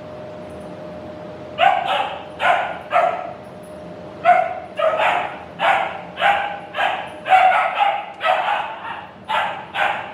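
A dog barking repeatedly, sharp barks coming about two a second, starting about a second and a half in. A faint steady hum runs before the barking starts.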